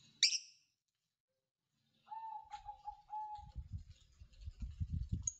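A bird calling faintly: a short high chirp just after the start, then a quick run of notes on one steady pitch. Low muffled thumps and rumbles fill the second half.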